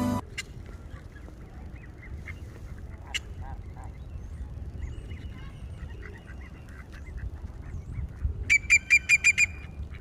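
Music cuts off right at the start, leaving a low outdoor rumble with faint scattered bird chirps. About eight and a half seconds in, a bird gives a quick run of about seven calls.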